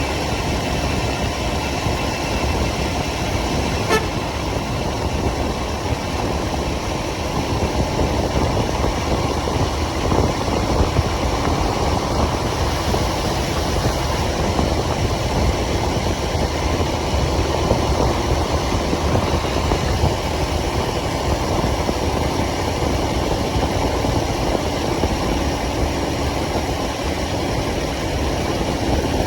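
Motorcycle riding through city traffic: steady engine and road noise, with a vehicle horn sounding in the traffic.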